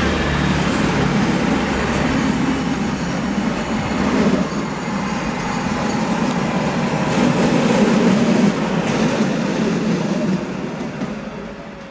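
A train running on the track, a steady noise that fades away near the end.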